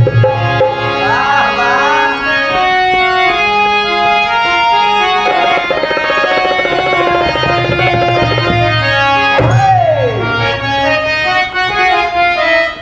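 Instrumental music: a reedy, harmonium-like keyboard melody of held notes over a low drone, with a couple of swooping pitch glides.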